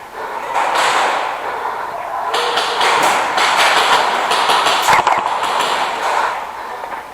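Airsoft guns firing in rapid bursts of sharp clicks, densest in the middle, with a single sharper knock about five seconds in.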